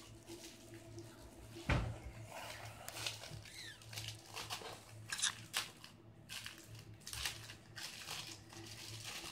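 Crinkling and rustling of a plastic craft-kit packet being handled and opened, in scattered short crackles, with one thump about two seconds in.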